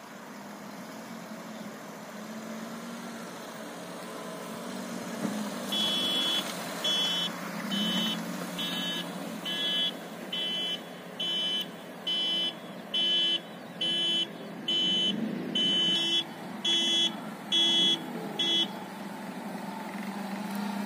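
Maruti Alto's small petrol engine running and revving over rough ground. From about six seconds in, an electronic beeper on the car beeps steadily, a little more than once a second, about sixteen times, and stops a couple of seconds before the end.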